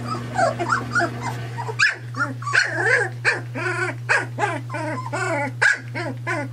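Three-week-old Sheepadoodle puppy giving a rapid string of little barks and whines, about three a second, faint at first and louder from about two seconds in.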